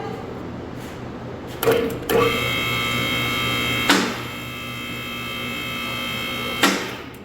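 Vehicle lift's electric hydraulic pump motor running with a steady whine for about four seconds as the lift raises the car. A clunk as it starts, a sharp click partway through, and a clunk as it stops.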